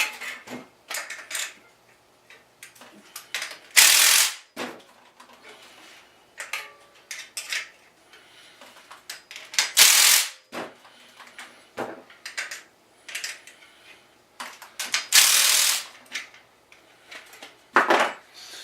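Ratchet wrench clicking in short bursts, with small metal clicks and knocks between, as the bolts of a motorized bicycle's rear sprocket are tightened one after another in a circle. The three loudest bursts come about 4, 10 and 15 seconds in.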